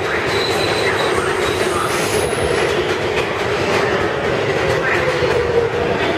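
New York City Subway R143 train rolling past the platform with a steady wheel-on-rail rumble and clatter and a brief high wheel squeal. In the second half a motor whine falls slowly in pitch as the train brakes into the station.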